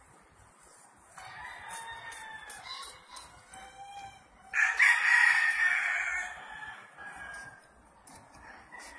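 Roosters crowing: fainter drawn-out crows about a second in, then a loud crow starting about halfway through that lasts about two seconds.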